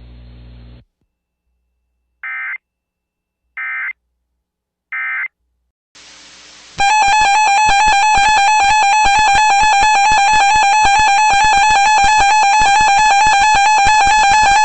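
Three short Emergency Alert System (SAME) data bursts, the end-of-message code, spaced about a second and a half apart. Then the EAS attention signal starts: a loud, steady two-tone alarm with a fast beating pulse, which marks the start of the next warning.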